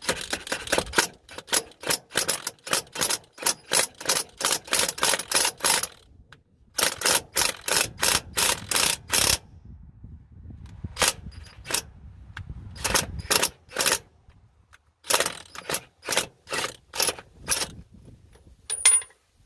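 Cordless impact wrench hammering in repeated bursts with short pauses between them, trying to turn out a broken bolt through a bolt welded onto it.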